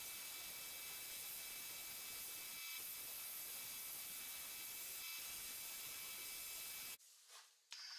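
Sandblasting cabinet's blast gun spraying abrasive with a steady hiss as it strips a pressed-steel Tonka truck part. The hiss cuts off suddenly about seven seconds in.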